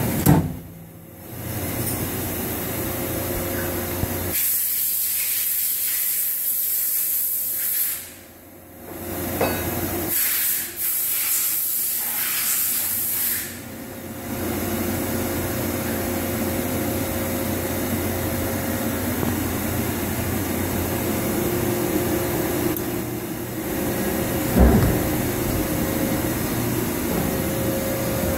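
Steady machinery hum from a powered-up Doosan HP 4000 II horizontal machining center, with stretches of high hiss and a few brief dips in level. A single knock sounds about three-quarters of the way through.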